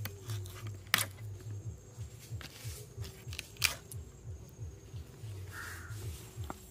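Raw tuna being cut by hand on a boti blade: soft slicing and handling noises, with two sharp cracks, about a second in and again a little over three and a half seconds in.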